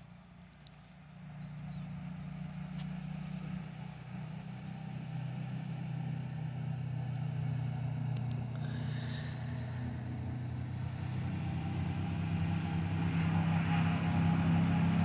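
A vehicle engine running with a steady low hum, coming in about a second in and growing steadily louder.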